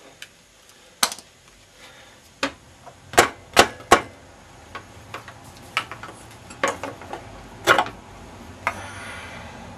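Irregular sharp metallic clicks and knocks of a hand tool working on a moped's exhaust fitting, the loudest three in quick succession about three to four seconds in, with a short scraping rustle near the end.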